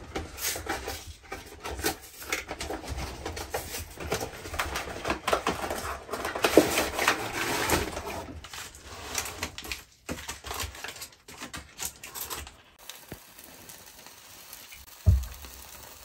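Paper bag and cardboard box of an army field ration being unpacked by hand: rustling and crinkling with clicks and knocks of packets and tins. It goes quieter about two-thirds of the way in, and a single low thump comes near the end.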